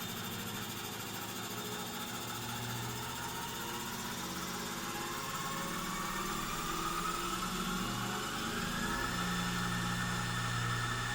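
Homemade CNC lathe running while machining: a steady motor hum with a thin whine that slowly rises in pitch through the second half.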